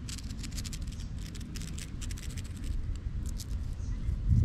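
Rustling of vegetation: quick, irregular crackles over a steady low rumble.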